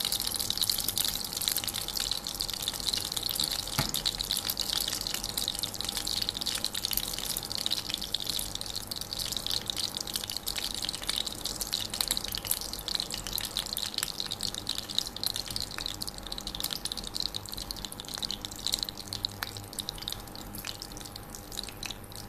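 Ghee heating in a nonstick kadai, sizzling with a dense fizzing crackle as it comes up to frying temperature; the crackle thins out gradually.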